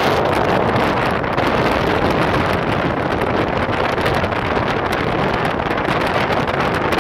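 Wind buffeting the phone microphone in the open carriage of a moving metre-gauge electric train, with the train's running noise underneath. It is a steady, loud rush with no let-up.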